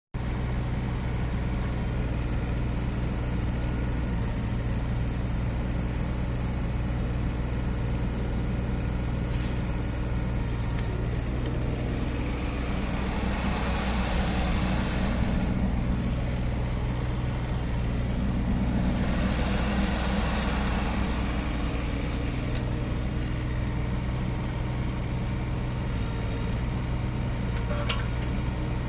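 2011 Bobcat E08 mini-excavator's small diesel engine running steadily, with two louder swells of a few seconds each around the middle and a short click near the end.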